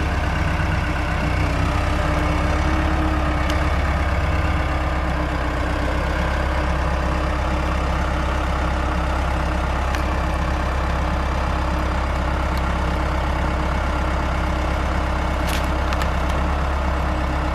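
Engine of a heavy machine running steadily at low speed, with a few light clicks near the end.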